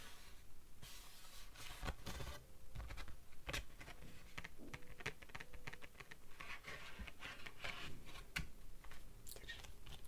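Paper greeting cards and an envelope being handled: irregular crinkling, scratching and tapping of card stock.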